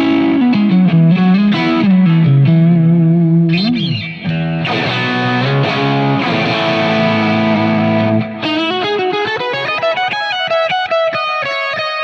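Electric guitar played through a Line 6 Helix running a PROXY capture of a 1966 Vox AC30, overdriven but with a chimey top. Single-note lines with a bend about four seconds in, then strummed chords, then a higher melody with vibrato near the end.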